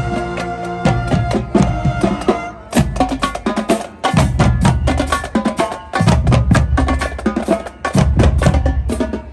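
Music with a strong percussion beat: a quick, steady run of sharp drum and woodblock-like clicks over pitched instruments and a recurring heavy bass.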